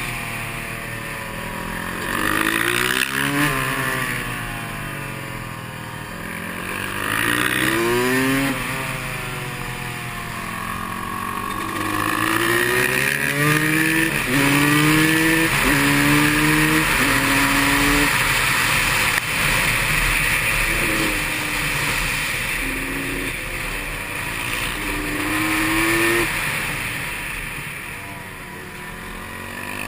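Supermoto motorcycle engine at speed, the revs climbing and falling again and again, with a run of quick stepped rises in pitch around the middle as it shifts up through the gears. Wind rushes over the onboard microphone throughout.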